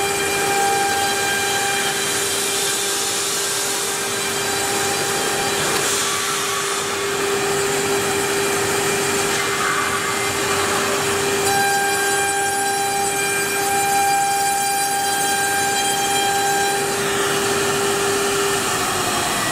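CNC router spindle running with a steady whine while milling round holes in a white foam slab, with higher tones that come and go. Near the end the whine drops in pitch as the spindle winds down.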